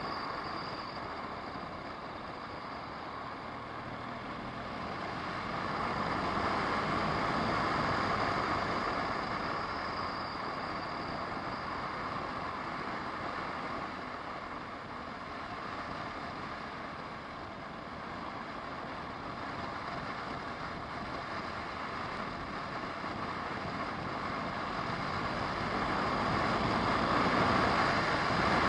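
A car driving, its engine and tyre noise heard from inside the cabin as a steady rush that swells a little twice.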